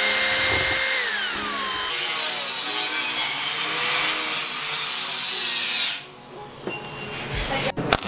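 Power drill running at a steady high whine, then spinning down with a falling pitch. Then a coarser, noisier power-tool sound for about four seconds, which stops and leaves a quieter stretch with a sharp click near the end.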